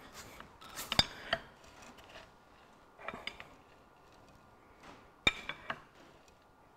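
Loose dry cylinder liner of a Ferguson 23C diesel engine clinking in the block as it is rocked by hand, a few separate metallic clinks with short gaps between them. The clinks come from the liner's loose, sloppy fit in the block, which is common on these engines.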